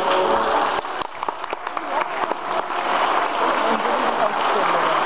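Concert hall audience applauding as the orchestral music ends: the last held notes fade at the start, scattered claps begin about a second in, and they grow into steady applause.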